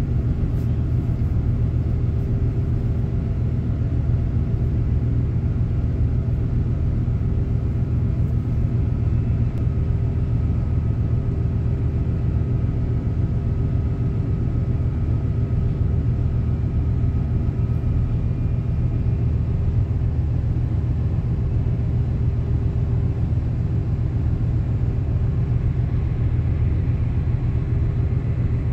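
Steady low drone of a ship's engine, heard on board a river vessel under way, with a constant hum that holds the same pitch throughout.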